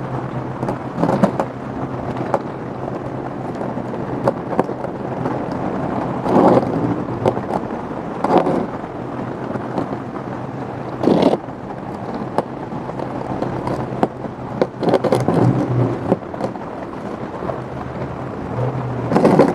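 Moist potting soil and a plant pot being handled while a succulent is repotted: rustling with a few short knocks and crackles, over a steady background hiss and low hum.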